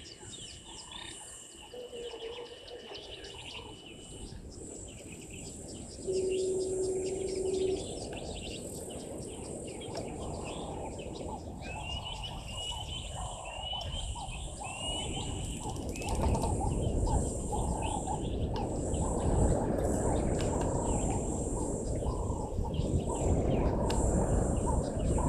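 Birds calling in the bush, with runs of short rising chirps, over a steady high insect drone. A brief steady hum sounds about six seconds in, and a low rushing noise grows louder from about two-thirds of the way through.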